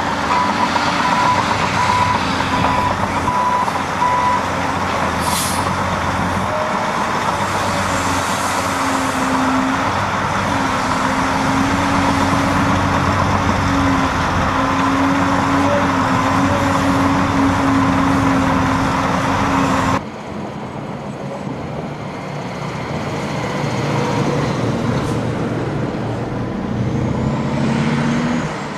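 Heavy diesel engines of a Caterpillar 385C excavator and 769D dump trucks running steadily, with a reversing alarm beeping for the first few seconds and a short hiss about five seconds in. After a sudden change about 20 seconds in, a quieter diesel drone from a 769D dump truck crossing a road, rising toward the end.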